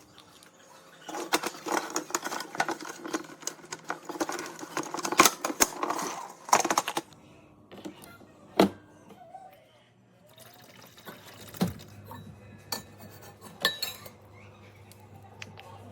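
Kitchenware being handled: irregular clinks, knocks and clatter, busiest in the first half, with one sharp knock about eight and a half seconds in.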